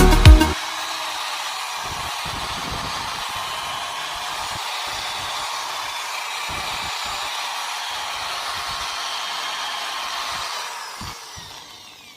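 Toyota 3NR four-cylinder petrol engine running at a steady speed, heard as an even whirring hiss with little low rumble; it fades out near the end.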